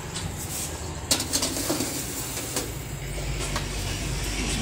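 Metal cake tin being set onto the wire rack of a gas oven: a few sharp clattering knocks, with a heavier knock at the end. A low steady hum comes up in the background about three seconds in.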